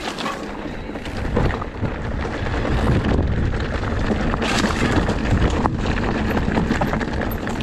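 Lapierre GLP2 electric enduro mountain bike riding a rough singletrack: wind buffeting the microphone, tyres running over dirt and stones, and the bike rattling with frequent knocks over the bumps.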